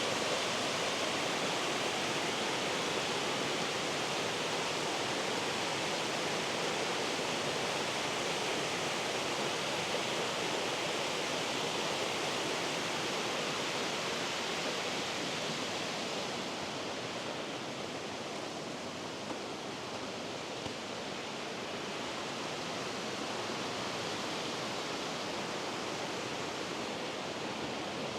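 Steady rushing of flowing water, like a fast mountain stream, easing slightly about two-thirds of the way through.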